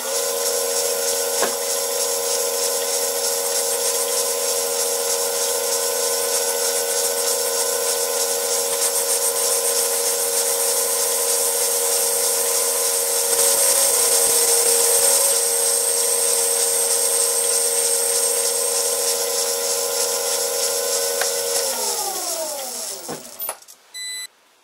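Vintage Karger metal lathe running at speed while an insert tool takes a facing cut on an oiled backing plate: a steady motor whine with the hiss of the cut, a little louder for a couple of seconds midway. About 22 s in the lathe is switched off and its whine falls in pitch as the spindle spins down, and a short high tone sounds near the end.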